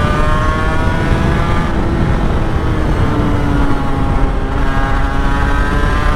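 Honda NSR250R's two-stroke V-twin engine running under way, its note easing down through the first half and climbing again in the second, over heavy wind rumble on the microphone.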